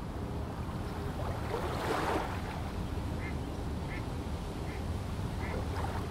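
Birds calling in short, repeated notes, about one a second in the second half, over a steady low rumble.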